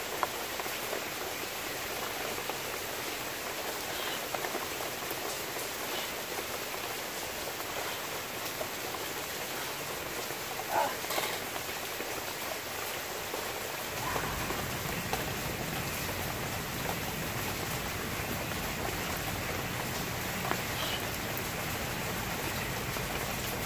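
Steady rain falling, with a few faint drips and taps. About halfway through, a low rumble joins in.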